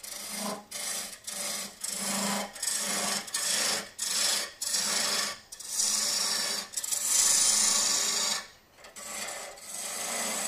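A half-inch bowl gouge roughing a spinning mesquite blank on a wood lathe at about 1600 rpm, clearing away the rough outside. It cuts in a string of short passes, each under a second, with brief gaps between them and a longer gap about eight and a half seconds in.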